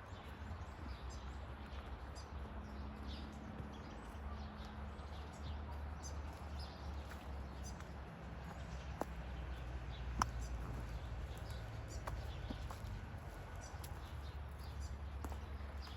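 Forest ambience: many small birds chirping over a steady low rumble, with a few sharp clicks about nine, ten and twelve seconds in, the one about ten seconds in the loudest.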